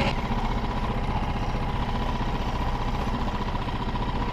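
Outboard motor of an inflatable boat running steadily with the boat under way, an even drone with a faint steady whine.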